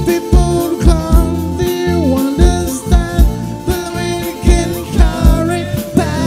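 A live band playing a song: a man's lead vocal over electric guitar, bass guitar, keyboard and drums, with a steady kick-drum beat.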